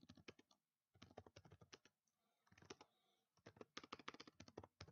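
Faint computer keyboard typing in four short runs of quick keystrokes, with brief pauses between them.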